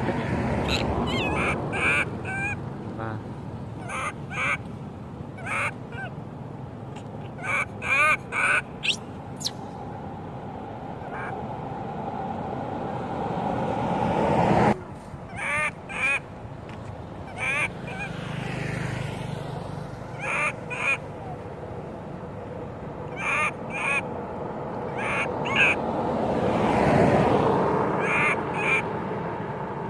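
Baby long-tailed macaque crying: short, high-pitched cries repeated in quick clusters of two or three. Traffic passes on the road behind, swelling up twice.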